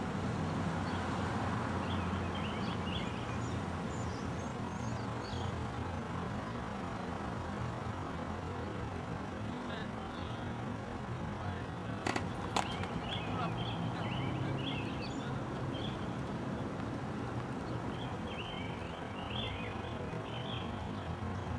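Outdoor ambience: a steady low rumble with small birds chirping on and off. About halfway through come two sharp knocks, half a second apart.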